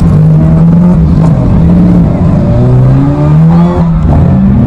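Demolition derby car engines running loudly, with one revving up, its pitch rising in the second half.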